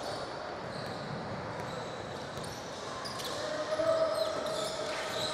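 A basketball being dribbled on a hardwood gym floor during a game, with scattered sharp bounces. Voices and players' calls echo in a large gymnasium.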